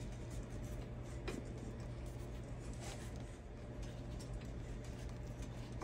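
Faint scratching and a few light clicks of wire being worked by hand into a hole in the vehicle's metal frame, over a steady low hum.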